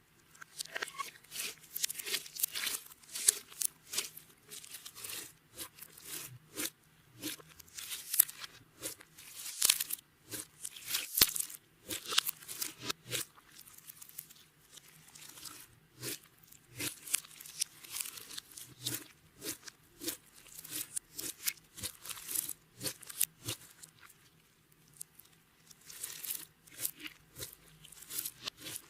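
Clear slime being squished and stretched by hand: a dense, irregular run of sticky crackles and pops, with short pauses about eleven seconds in and near the twenty-five-second mark.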